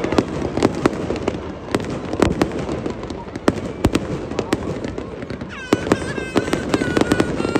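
Aerial fireworks display: shells bursting in a rapid, irregular series of sharp bangs. In the second half a high, wavering tone sounds several times over the bangs.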